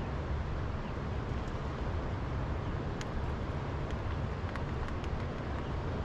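Steady low outdoor rumble, with a few faint ticks about three seconds in and again near the end.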